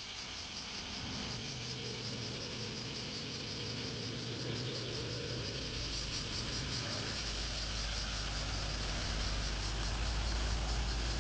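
Insects calling in a steady, pulsing high-pitched chorus, with a low rumble that builds from about seven seconds in.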